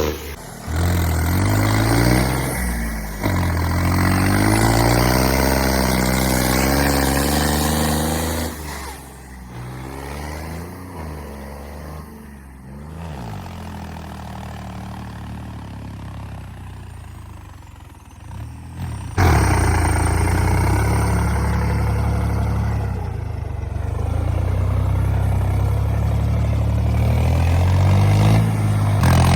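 Tractor engine working hard under heavy load while pushing through deep mud, its pitch rising and falling as the revs change. It drops quieter for several seconds in the middle, then comes back loud all at once about two-thirds of the way in.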